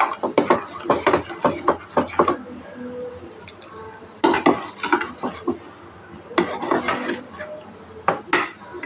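Steel ladle scraping and clinking against a stainless steel pot while stirring sugar into thick rice-and-milk payasam, in several bursts with short pauses between.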